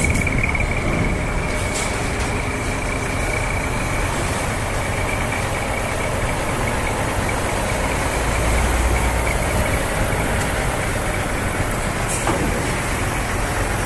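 Heavy truck engine running, with steady vehicle noise. A steady high whine fades out over the first few seconds, and the low rumble swells for a couple of seconds in the middle.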